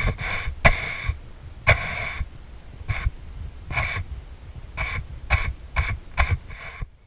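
A stiff paintbrush scraping across a wooden panel in short, uneven strokes, streaking on a thin, watered-down paint wash. The strokes stop abruptly near the end.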